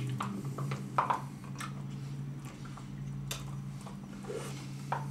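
Plastic spoons scraping and clicking in plastic sundae cups as ice cream is eaten fast, in scattered small clicks, the sharpest about a second in, over a steady low hum.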